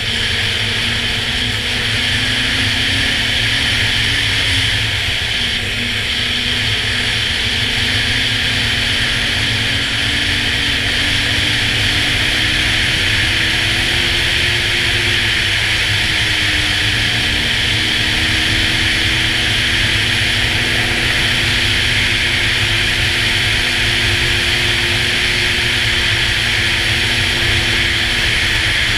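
Snowmobile engine running steadily at riding speed, its pitch wavering slightly and dipping briefly a little past halfway, under a steady rushing hiss.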